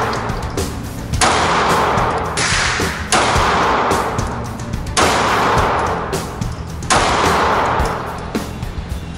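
Five 9mm pistol shots at uneven spacing, each followed by a long echoing decay in an enclosed indoor range, over background music.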